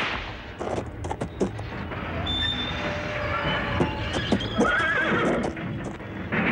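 A horse whinnying while straining to pull a heavy cart, with a run of hoof clops and knocks.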